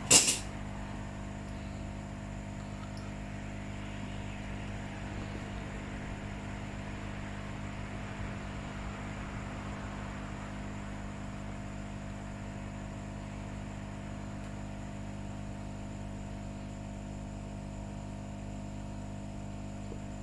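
Steady electrical mains hum with several constant tones over faint hiss, unchanging throughout. A brief sharp noise sounds at the very start.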